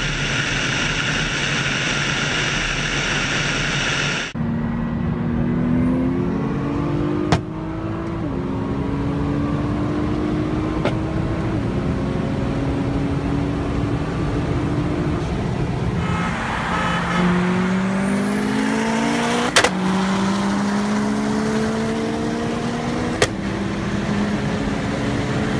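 A car's engine at full throttle on a highway, heard from inside a car's cabin, pulling hard through the gears: its pitch climbs steadily and drops back at each upshift, over and over. Before that, about four seconds of dense engine and wind noise. A few sharp clicks are scattered through it.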